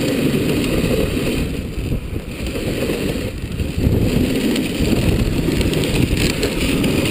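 Dog sled running over a packed snow trail behind a husky team: a steady rough noise of the sled sliding and jostling, mixed with wind rumble on the chest-mounted camera's microphone.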